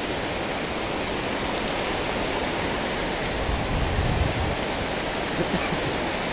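Water falling over a low concrete dam spillway into the creek pool, a steady, even rush of noise. A brief low rumble rises about four seconds in.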